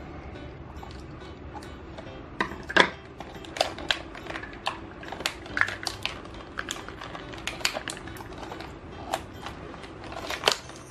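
Plastic toy packaging being pulled and handled: irregular sharp crackles and clicks, starting about two seconds in.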